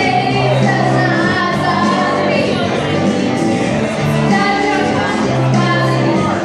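Two women singing a duet into microphones over a recorded backing track, amplified through a bar's sound system.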